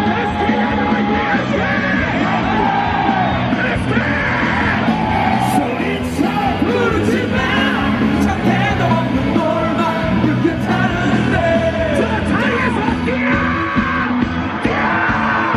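Large stadium crowd singing and yelling together over music played through the ballpark loudspeakers.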